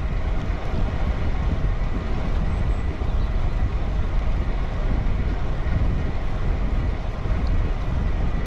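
Wind buffeting the microphone of a camera on a moving bicycle, a steady, loud low rumble, with the bike's tyres running on tarmac.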